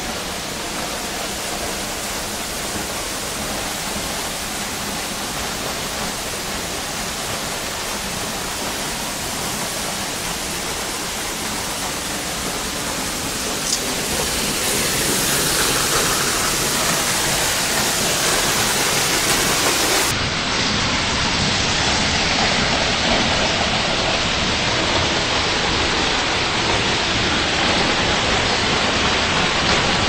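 Waterfall: falling water in a steady rush, growing louder about halfway through and turning suddenly duller about two-thirds through.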